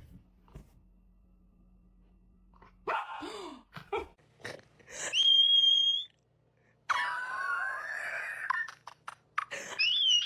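A pet dog whining: a few short sounds about three seconds in, then high, drawn-out whines that waver in pitch.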